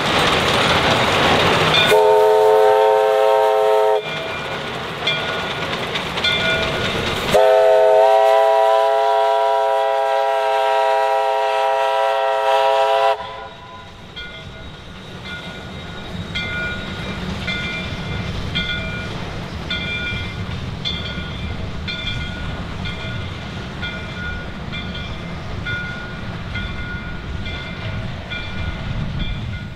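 A locomotive's chime whistle sounds two blasts, a short one and a longer one of about six seconds, after a burst of loud hissing. The train then rolls along with a low rumble while a bell rings steadily, a little more than once a second.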